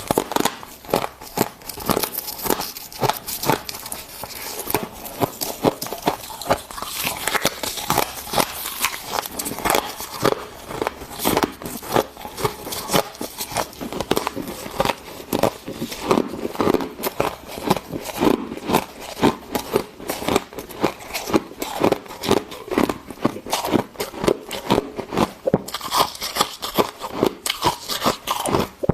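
Close-up chewing of fluffy freezer frost and ice chips: a dense run of crunching bites, with crackly crunches coming several times a second.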